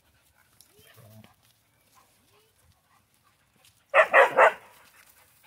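Dog giving a quick run of three or four barks about four seconds in: play barks as two dogs face off.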